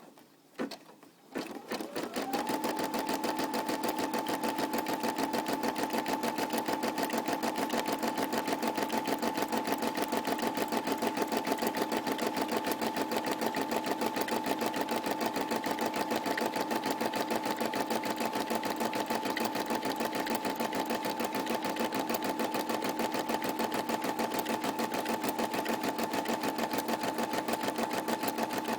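Computerised embroidery machine stitching in a fast, even rhythm over a steady motor tone, starting up about two seconds in after a few clicks.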